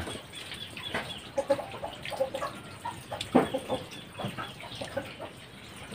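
Domestic chickens clucking in short, repeated notes, with a few sharp knocks.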